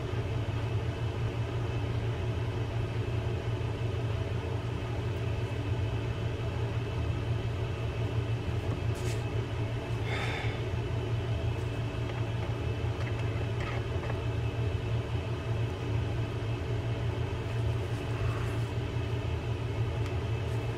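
A steady mechanical hum, with a few faint clicks and taps from metal fishing-reel parts being handled and fitted, around the middle and again near the end.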